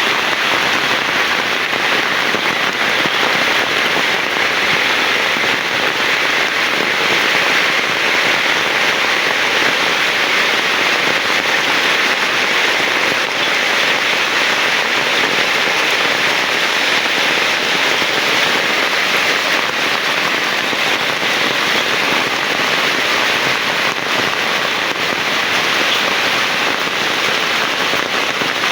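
Heavy rain falling steadily, a dense, crackling patter of many drops close by, with no let-up.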